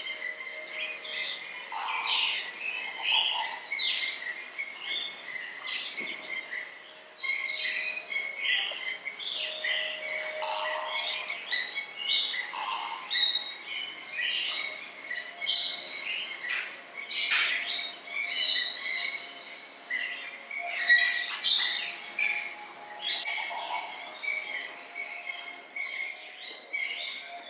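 A chorus of many birds chirping and calling over one another, busy and high-pitched throughout, with a few lower calls mixed in.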